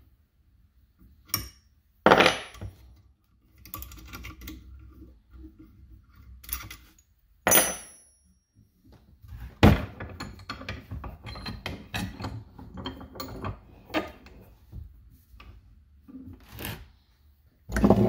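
Hand tools and steel fittings clanking against a cast iron bench vise while a wrench works a reusable AN hose-end fitting off a power steering hose. Several sharp metallic clanks, two of them ringing, and a loud knock about ten seconds in, then scattered rattling and scraping.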